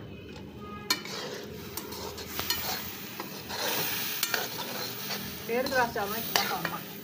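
A metal ladle stirring and scraping around a steel karahi of chickpea masala, which sizzles as it fries. The ladle clicks against the pan from about a second in, and the scraping is loudest about five and a half to six and a half seconds in.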